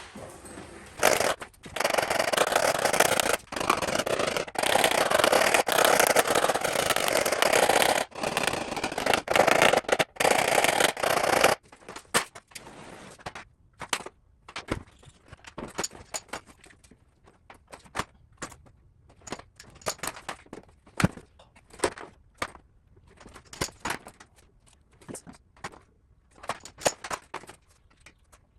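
Paintless dent repair glue-pull work on a vehicle panel. About ten seconds of loud, continuous rough scraping noise with brief breaks, then quieter scattered light clicks and taps.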